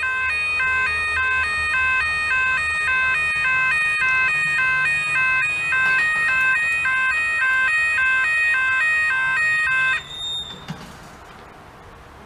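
Electronic siren with several tones stepping back and forth a few times a second, cutting off suddenly near the end.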